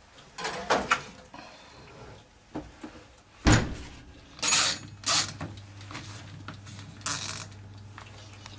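Metal baking tray slid into a kitchen oven and the oven door shut with a bang about three and a half seconds in, with a few lighter clicks before it. Softer knocks and rustles follow over a low steady hum.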